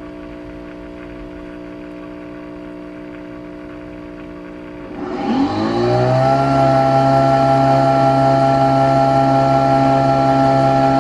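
Nespresso Aeroccino 3 milk frother humming steadily as it froths milk. About five seconds in, the Nespresso Vertuo Next spins up with a rising whine into a much louder steady drone, its motor spinning the capsule as it starts brewing.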